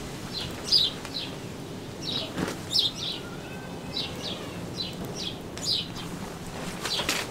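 Small birds chirping: short, high, falling chirps repeated irregularly, over a low outdoor background. There is a soft thump about two and a half seconds in.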